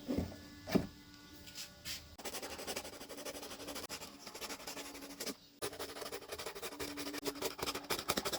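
Cardboard being worked by hand: two knocks, then a fast rasping scratch of many small clicks lasting several seconds, broken once about halfway.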